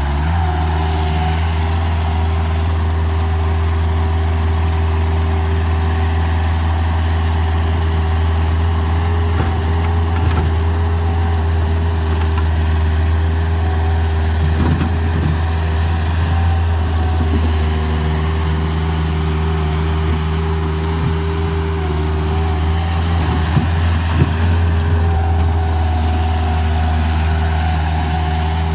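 Bobcat 753 skid steer's diesel engine running steadily at a constant speed, with a few faint knocks along the way.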